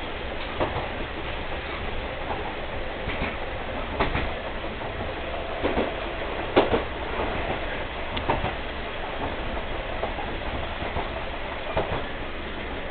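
Inside a KiHa 22 diesel railcar under way: a steady low rumble from its DMH17C diesel engine and running gear. Over it come sharp knocks at uneven intervals as the wheels cross rail joints, the loudest about six and a half seconds in.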